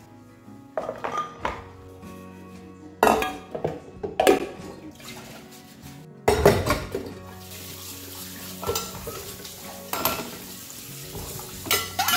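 Dishes being washed in a stainless steel sink: irregular clanks and clinks of steel pots, plates and plastic bowls knocking together, with tap water running through the second half. Soft background music plays underneath.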